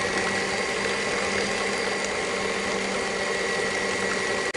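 Electric mixer with twin beaters running at a steady speed, whining steadily as it churns a thick, lumpy cottage cheese batter in a plastic bowl.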